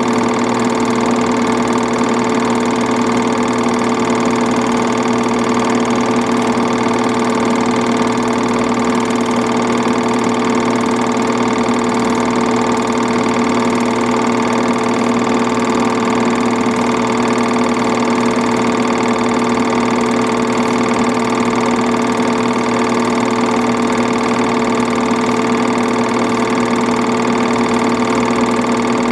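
Film projector running: a steady mechanical whir with a fixed, unchanging hum that does not vary at all.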